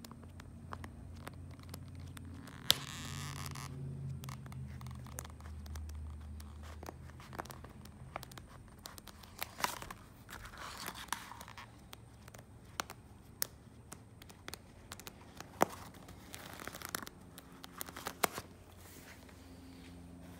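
Vinyl upholstery sample cards being leafed through by hand: the thin cards flick and tap against one another in scattered sharp clicks, with a few short crinkles of a loose plastic cover sheet.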